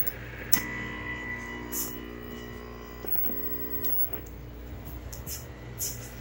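Steady electrical mains hum with a buzz of several held tones whose pattern shifts about three seconds in, and a few light clicks of test-equipment keys and knobs being worked.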